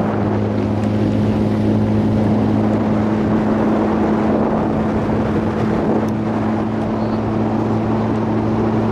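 Outboard motor of an inflatable motorboat running at a steady cruising pace, a constant drone that does not change in pitch.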